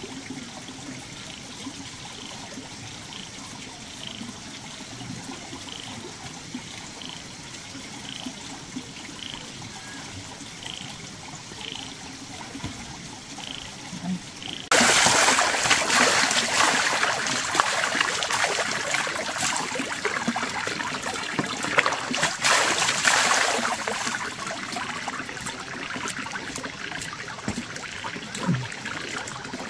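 Water splashing and trickling, starting suddenly about halfway through and loud from then on. Before it, faint high chirps repeat steadily, a little more than once a second.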